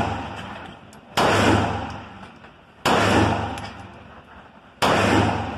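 Three single shots from a Glock 44 .22 LR pistol, fired slowly and evenly about one and a half to two seconds apart. Each crack echoes and dies away over about a second in the enclosed shooting booth.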